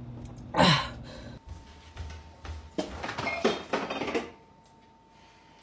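A short, loud pained groan falling in pitch, from a man holding his sore throat. Then a refrigerator's French door is pulled open, with a few knocks and rustles as things inside are moved.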